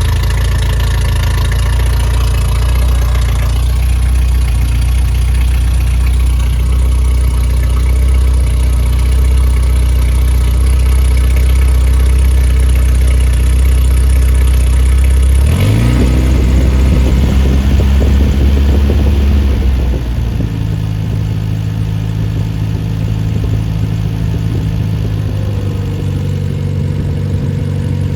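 Freshly rebuilt Triumph Spitfire 1500 inline-four engine running with no muffler, a little loud. It runs steadily, is revved up about halfway through and held there for a few seconds, then drops back to a lower steady idle.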